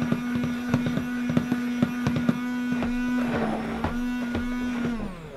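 Stick blender running in thick hot-process soap batter: a steady motor whine with many sharp clicks as the blending head works through the stiff batter. Near the end the motor is switched off and its whine slides down in pitch as it winds down.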